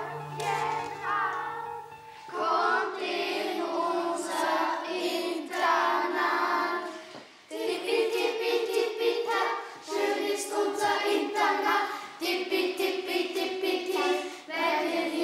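Several voices singing a song in phrases of held notes, with short breaks between the phrases.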